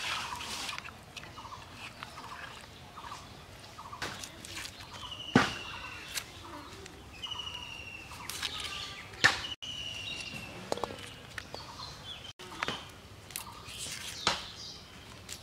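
Birds calling, with several short falling whistled notes, over soft clicks and taps of hands handling food and peeling onions against a blade. Sharper knocks stand out about five and nine seconds in.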